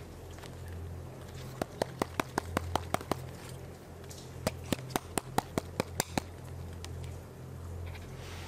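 Two runs of quick, sharp plastic clicks, about five a second, as hands grip, twist and work a thin plastic container loose from the soil in a clay pot. A low hum runs underneath.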